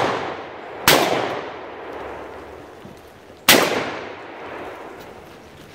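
Two gunshots from a shouldered long gun, about two and a half seconds apart, each followed by a long echoing decay. The tail of an earlier shot is still fading at the start.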